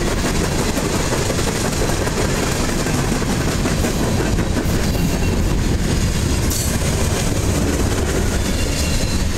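Covered hopper cars of a long freight train rolling past close by, their steel wheels running steadily over the rails.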